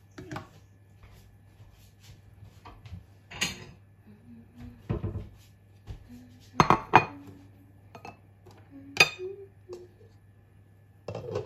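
A spatula knocking and scraping against a frying pan of salmon fillets: half a dozen separate clatters and clinks, the loudest a quick pair about seven seconds in and another about nine seconds in, over a steady low hum.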